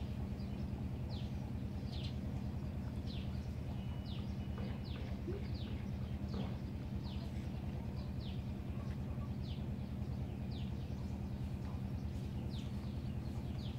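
A bird repeating a short falling chirp, about one or two a second, over a steady low hum.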